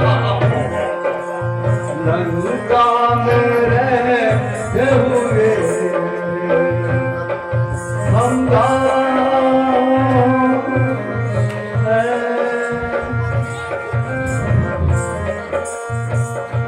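Indian folk-style music: a tabla-like hand-drum rhythm under a held, gliding melody.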